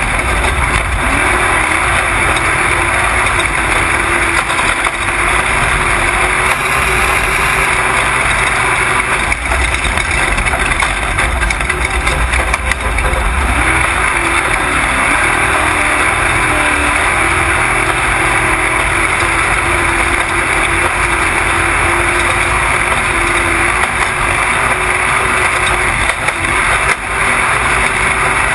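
Off-road race truck's engine running hard at speed, its pitch wavering, buried in steady heavy wind and road noise as heard from an onboard camera.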